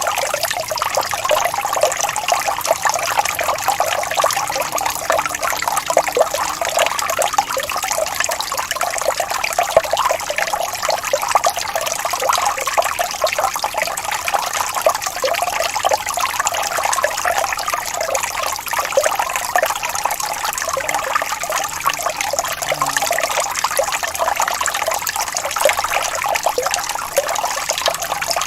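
Running water of a gently rippling stream, a steady trickling and babbling without breaks and with little deep rumble.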